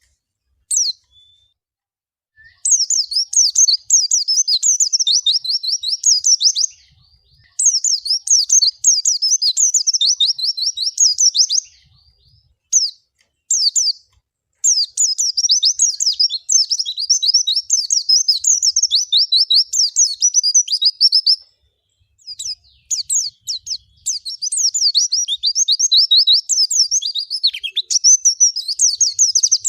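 White-eye (pleci) singing long phrases of fast, high twittering notes, broken by short pauses of about a second.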